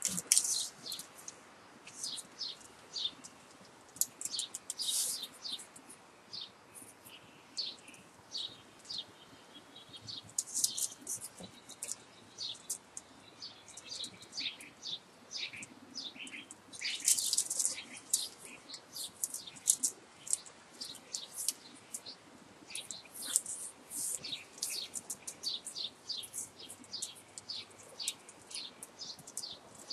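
Enamelled copper magnet wire, a bundle of parallel strands, squeaking and scraping in quick, irregular strokes as it is pushed by hand into the slots of an electric motor stator.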